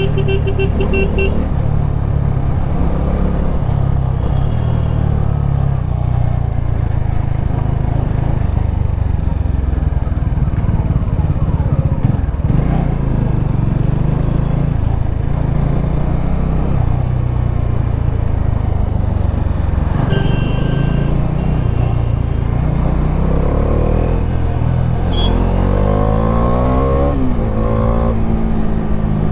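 Bajaj Dominar 400's single-cylinder engine running under way. A few short beeps come near the start and about 20 seconds in, and the engine pitch rises and falls near the end.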